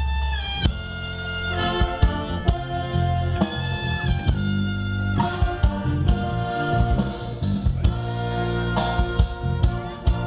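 An orchestra playing instrumental music live: held melody notes that change every second or so, over a bass line with frequent drum hits.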